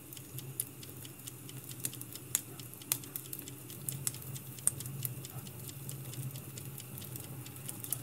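Crackling wood fire: irregular sharp pops and snaps over a low steady hum.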